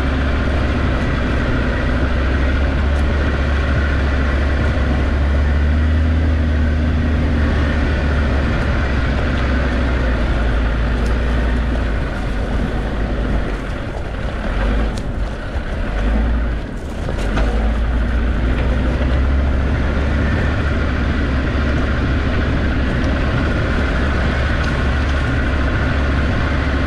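Land Rover Discovery 2's Td5 five-cylinder turbodiesel engine running under way off-road, a steady deep rumble with road and drivetrain noise. It eases briefly about halfway through, with a few light knocks, then picks up again.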